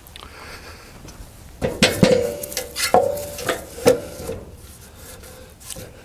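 A run of sharp metallic clanks and knocks, several ringing briefly, starting about a second and a half in and lasting around three seconds: timbers and the steel clamps being handled on a portable bandsaw mill's bed.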